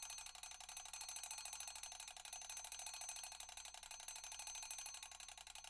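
Mechanical alarm clock ringing: its hammer strikes the bell in a fast, steady rattle.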